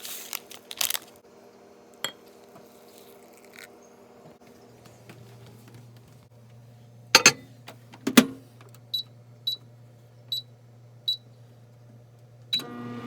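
Microwave oven being set: two loud clunks of the door, then four short high keypad beeps, and a click near the end as it starts. A low steady hum runs underneath.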